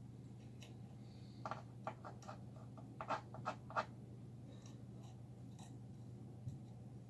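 Small clicks, taps and light scratching of hands handling tools and parts during an electronics repair, in two quick clusters about one and a half and three seconds in, over a faint steady low hum.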